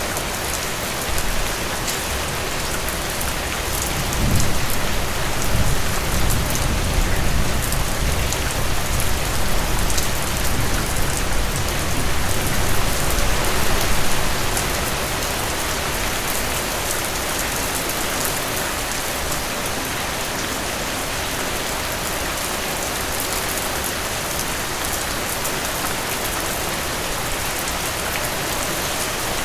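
Heavy rain falling steadily, a dense even hiss of drops. From about four seconds in to about fourteen seconds a low rumble of thunder swells under the rain and fades out.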